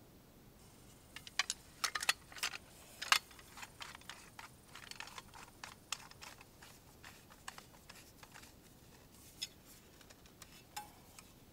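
Scattered sharp clicks and small metal rattles of a folding tri-fold shovel being handled and unfolded, its blade and handle sections clicking into place.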